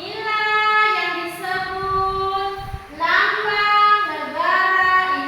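A child singing in a sing-song voice, holding long notes of about a second each with short breaks between them.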